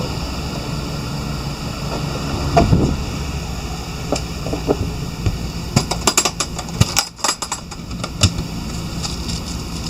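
Steady mechanical hum of the camper's cooling, with a quick cluster of clicks and knocks about six to eight seconds in as the portable 12-volt freezer is opened.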